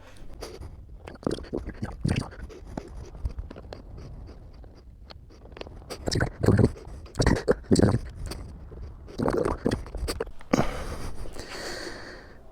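Hands working on a motorcycle's instrument cluster and plastic trim: irregular clicks, knocks and handling noises, with a rustling hiss in the last couple of seconds.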